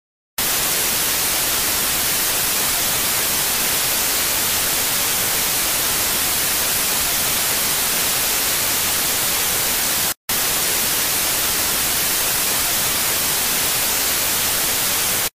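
Loud TV static hiss that cuts in abruptly, drops out for a split second about ten seconds in, then resumes and cuts off abruptly.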